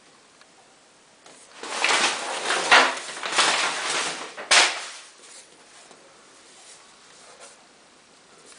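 Phone packaging being handled: about three seconds of rustling and scraping, ending in a sharp click.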